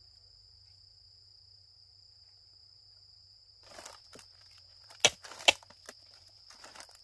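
A steady, high-pitched insect drone from the forest. About halfway through, rustling on dry leaf litter and footsteps begin, with two sharp knocks half a second apart near the end, the loudest sounds here.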